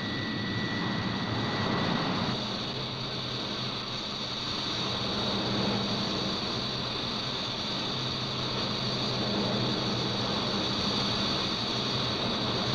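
Steady in-flight jet aircraft noise: a continuous rushing hiss over a low hum, with a faint high whistle that stops about two seconds in.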